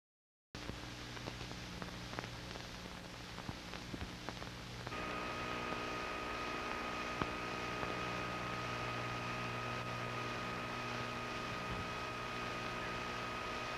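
Steady hum and hiss with scattered faint clicks. About five seconds in, a steady high-pitched whine joins and holds.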